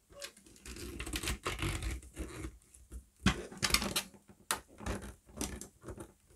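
Small Torx screwdriver backing a short screw out of a Dyson Fluffy cleaner head's clear plastic side housing: irregular clicks and scrapes of the bit and the plastic parts being handled.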